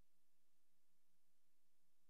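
Near silence: a faint steady hiss with a low hum, with no soundtrack.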